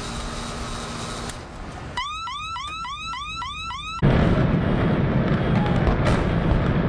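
Electronic anti-theft alarm sounding: a rapid series of rising chirps, about four a second, for about two seconds, then cut off. A much louder dense rumble follows, with a couple of sharp cracks, from the implosion demolition of Texas Stadium.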